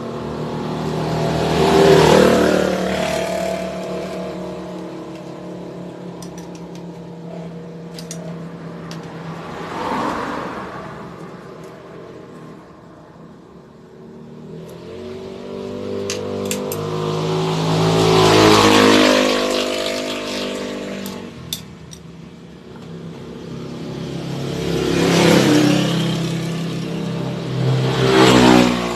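Motorcycle engine revving up and dying back down in repeated swells, about five in all, with a few sharp clicks in between.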